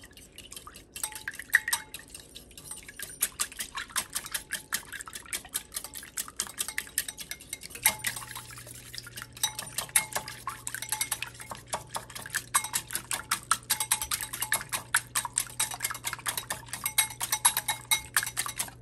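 Wire whisk beating milk, egg and oil in a bowl: fast, continuous clicking and scraping of the wires against the bowl. A steady low hum joins in about eight seconds in.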